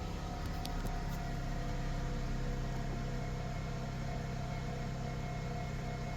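Jeep Grand Cherokee's 3.6L Pentastar V6 idling steadily just after being started.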